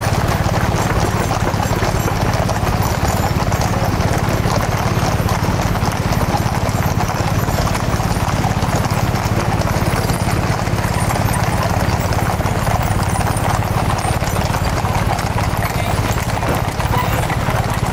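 Many horses' hooves clip-clopping on a paved road as a mounted troop passes, a dense, continuous clatter. A steady low rumble runs underneath.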